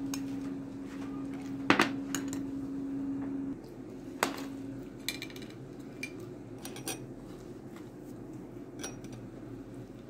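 Kitchen dishes and utensils clinking and knocking now and then, the loudest knocks about two and four seconds in, over a steady hum that stops about three and a half seconds in.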